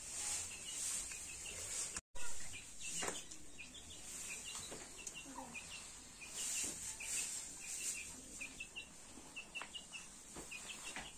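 Yard ambience of birds chirping in many short, quickly repeated notes, with chickens clucking now and then, over a steady high hiss. The sound cuts out for an instant about two seconds in.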